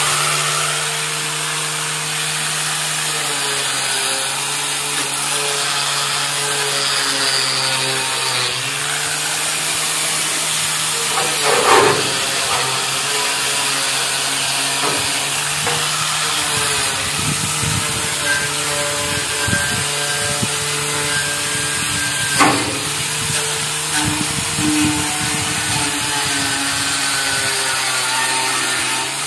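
Corded electric angle grinder (called a sander) fitted with a steel-brass wire cup brush, running and scouring rust off the tricycle's steel frame. The motor whines steadily over a scraping hiss, its pitch dipping now and then as the brush is pressed in, with sharp louder scrapes about 12 and 22 seconds in.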